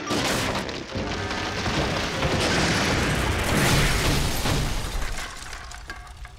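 Cartoon sound effects of a big tree falling and crashing down onto a house: a long, loud crash and rumble that is loudest about four seconds in and dies away near the end, with music underneath.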